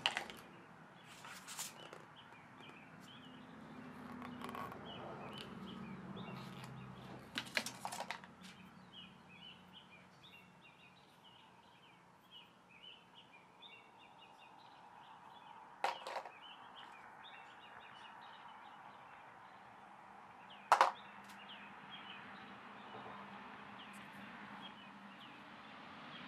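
Small objects being handled and set down on a tabletop, a few sharp clicks and knocks, the loudest late on. Faint bird chirping runs in the background.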